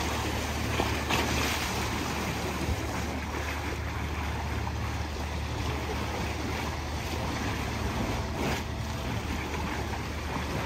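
Lake water lapping and splashing against shoreline rocks, over a steady low rumble.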